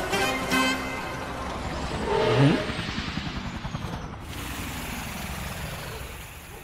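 Cartoon vehicle sound effects: a car engine revs up briefly about two seconds in, followed by a long hissing rush that gradually fades.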